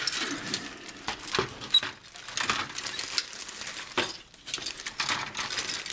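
A clear plastic bag crinkling and rustling in irregular bursts as hands open it and pull out grey plastic model-kit parts on their sprues, with light clicks of the plastic parts.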